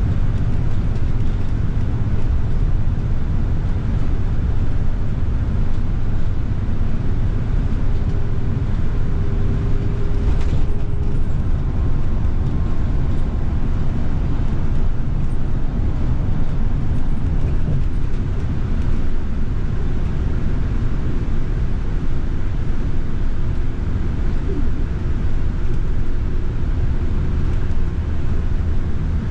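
Steady ride noise heard from the upper deck of a double-decker bus: a continuous low rumble of engine and road noise, with one brief click about ten seconds in.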